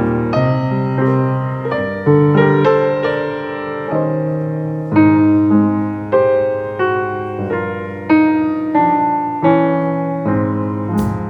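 Solo piano music: a gentle melody of struck notes over sustained chords, each phrase fading before the next begins.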